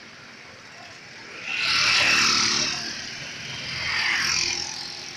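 Road vehicles passing close by: two swells of engine and tyre noise, the first and louder about a second and a half in, the second near the end.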